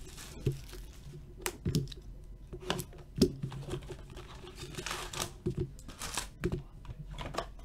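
Plastic shrink wrap crinkling and the cardboard of an Upper Deck Trilogy hockey card box being opened and handled, with scattered sharp clicks and rustles, the loudest about three seconds in.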